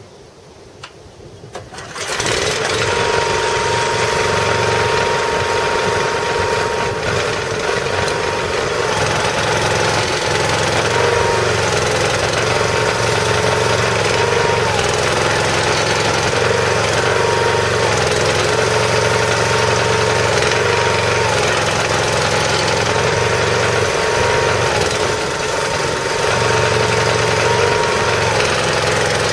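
A 13 hp Honda single-cylinder engine driving a log splitter's hydraulic pump starts up about two seconds in, then runs steadily. Its pitch dips slightly now and then as it labours while the blade lifter and log lifter are raised and lowered. The labouring comes from oil being forced through 1/16-inch orifices in the lift cylinders' lines.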